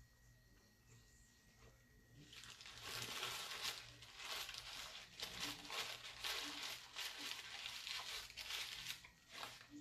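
Paper sandwich wrapper crinkling and crumpling in someone's hands, starting about two seconds in and going on as a dense crackle.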